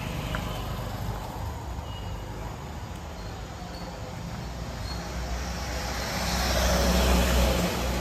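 Motor vehicle running, a steady low engine rumble with a broad rushing noise over it, growing louder about six seconds in and peaking near the end.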